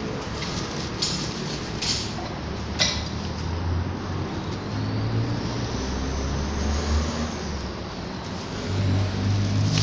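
Motor traffic: vehicle engines running with a steady low rumble, and a few sharp clicks in the first three seconds.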